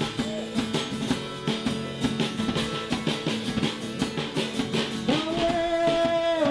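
Rock music with guitar and drums, a quick pattern of short notes; a long held note comes in about five seconds in.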